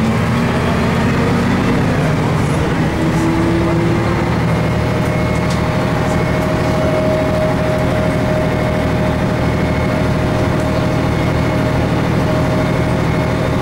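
The cabin of a 1988 MAN SL202 diesel bus under way: a steady engine drone and road noise. A steady whine joins about four seconds in.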